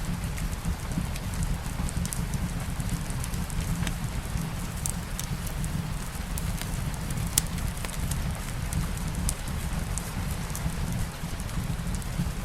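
Light rain hissing steadily, with a wood fire in a fireplace crackling over a low steady rumble: scattered sharp pops, one louder than the rest a little past halfway.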